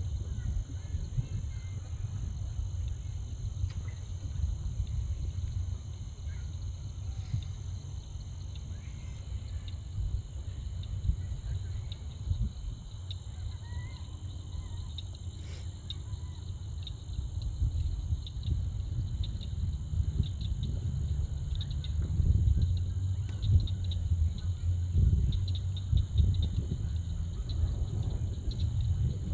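Steady, high-pitched chorus of insects, with an uneven low rumble underneath that grows louder after about twenty seconds.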